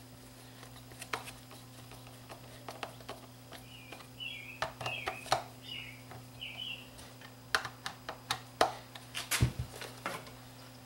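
Irregular clicks and taps of a hand screwdriver and metal screws on a plastic fan motor housing as the motor is screwed back together, with a cluster of short high chirps about halfway through and a dull thump near the end as the motor is handled. A steady low mains hum runs underneath.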